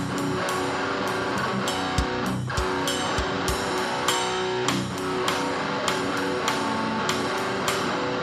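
Death-metal band playing live: electric guitar holding a sustained chord riff over steady cymbal taps, about two to three a second, with a few kick-drum hits in the middle.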